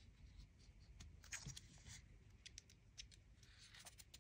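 Faint scattered ticks and light handling noise as an Alpine Loop band's connector is slid into the band slot of an Apple Watch Ultra, over near silence.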